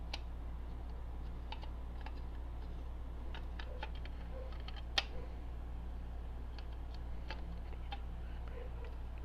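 Small scattered clicks and taps of metal parts being handled on a Simplex fire alarm pull station, with one sharper click about five seconds in, over a steady low hum.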